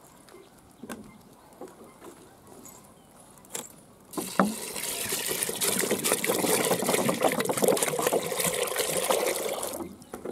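Water poured in a steady stream into an aluminium pot of soaking lentils (toor dal and split chickpeas). The pour starts about four seconds in with a knock and runs loud and even for nearly six seconds before stopping near the end.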